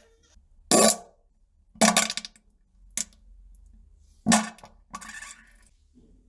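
A series of four short farts with pauses between them, and a brief click in the middle.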